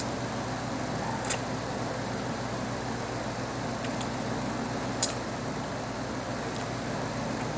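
A person slurping and eating Samyang Rosé instant noodles: short sharp slurps about a second in and again about five seconds in, over a steady background hum.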